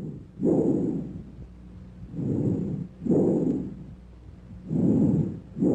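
Bronchial breath sounds heard through a stethoscope over the chest: loud, higher-pitched rushing breaths. Each cycle is an inspiratory sound followed by a longer expiratory sound, with a brief silent gap between them, repeating about every two and a half seconds.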